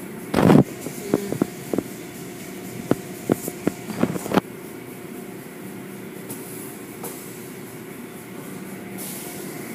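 Automatic tunnel car wash running, its cloth curtain strips sweeping over a car with a steady machinery hum. In the first four seconds or so there is a run of sharp knocks and slaps, the loudest about half a second in.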